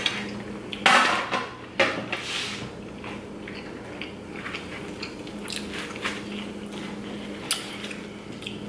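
Eating and food handling: a few sharp clatters of a fork and plastic takeout trays in the first two seconds, then soft bites, chewing and small clicks as pizza slices are pulled from the box. A low steady hum runs underneath.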